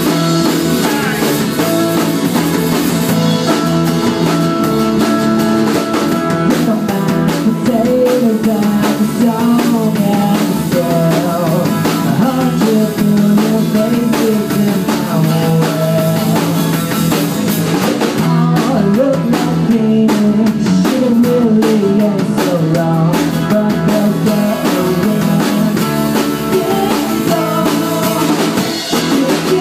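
Live band playing: two acoustic guitars strummed over a drum kit, at an even, unbroken loudness.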